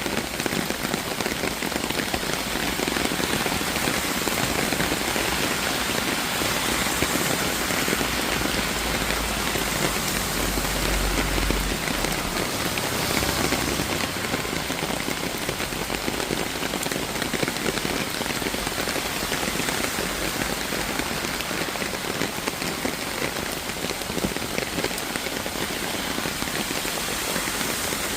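Steady rain falling and pattering on surfaces, an even hiss of many drops, with a low rumble underneath a little before the middle.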